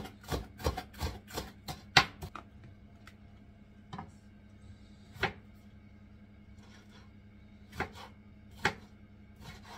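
Kitchen knife slicing habanero pepper, striking the cutting board. It chops quickly, about five strokes a second, for the first couple of seconds, then gives a few single cuts spaced out over the rest.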